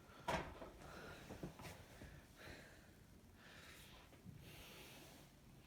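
A single switch click, then a View Fan spinner ceiling fan motor starting up on its low speed, very faint.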